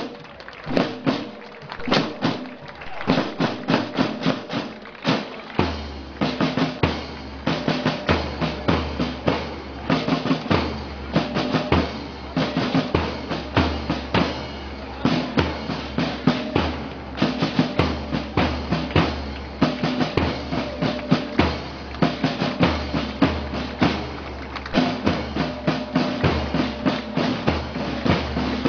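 Marching band music led by drums: rapid snare and bass drum strokes over held tones, with a deep low note coming in about six seconds in.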